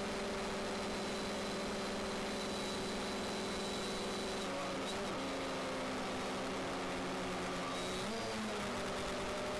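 Quadcopter drone's motors and propellers humming steadily. The hum shifts pitch briefly about halfway through and again near the end as the motors change speed.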